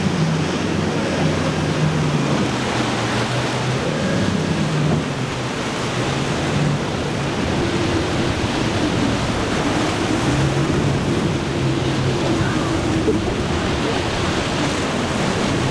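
Wind buffeting the microphone and the rush of surf and wake, over a low drone of outboard engines running at speed.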